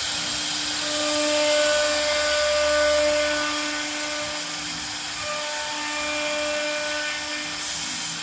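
Spindle of a four-spindle cabinet-door CNC router running with a steady whine while its bit cuts, the cutting noise rising and falling as it works. A short hiss near the end.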